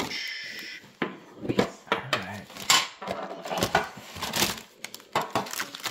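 Trading card boxes and a metal card tin being handled and set down on a desk: an irregular clatter of knocks, clicks and scrapes, with a short rustle of packaging in the first second.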